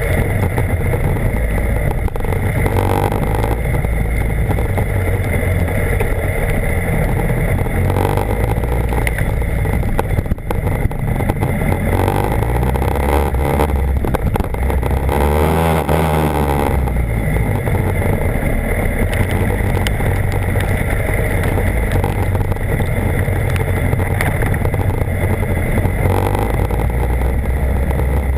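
BMW HP4's inline four-cylinder engine running under way, heard from on the bike with heavy wind noise over it. The engine note changes briefly about halfway through.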